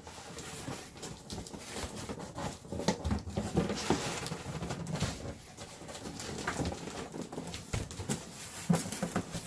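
Cardboard boxes being handled: irregular scraping, rubbing and light knocks as a sealed box is worked out of an outer cardboard box.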